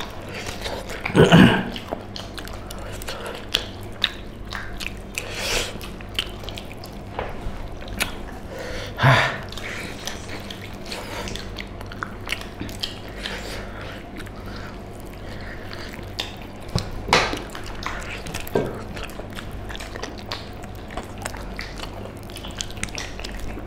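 Close-up eating sounds of two people eating pork leg curry and rice with their hands: wet chewing, lip smacking and biting on meat, with many scattered small clicks over a low steady hum. A few louder short sounds stand out, about a second in, around nine seconds and again near seventeen seconds.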